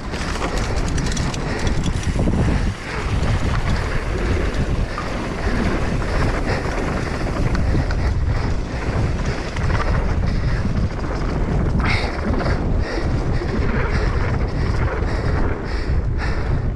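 Wind buffeting the GoPro microphone on a mountain bike descending a dirt singletrack, under tyre rolling noise and the rattle of the bike, with a few sharper clatters. The bike is being ridden on a tyre that has just gone flat.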